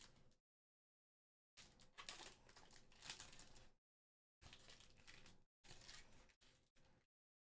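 Foil booster pack wrapper crinkling and tearing as it is opened and the cards handled, in several short bursts of rustling.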